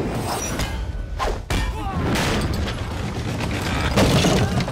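Film fight-scene sound mix: a dense run of hits and thuds with men shouting in a brawl, building to a loud crash about four seconds in as a wooden lattice panel breaks apart.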